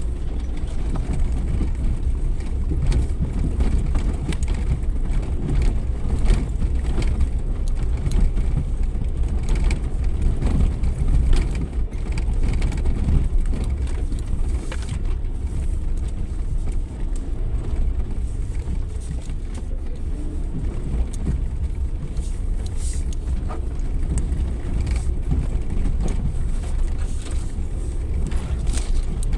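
Suzuki Jimny 4x4 driving off-road: a steady low engine and road rumble with scattered knocks and rattles.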